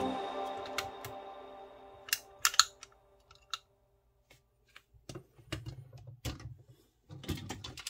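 Background music fades out, then scattered sharp clicks and snaps of hard plastic toy parts being handled and clicked into place while a transforming robot toy is worked by hand.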